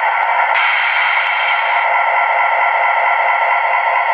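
Sound decoder in a model AC4400 diesel locomotive playing its diesel engine sound through the model's small speaker: a steady, thin-sounding engine drone.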